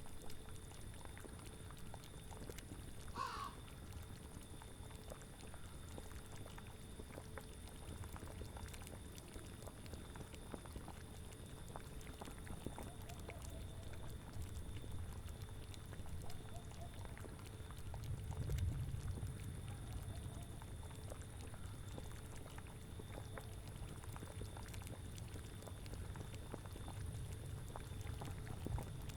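Layered ambience: a cauldron bubbling with a steady patter of small pops over a low wind rumble that swells briefly about two-thirds of the way in. A short animal call sounds once about three seconds in.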